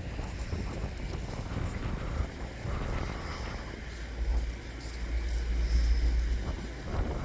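Gusty wind buffeting the microphone as a low, rumbling roar, with a stronger gust about four seconds in that lasts a couple of seconds.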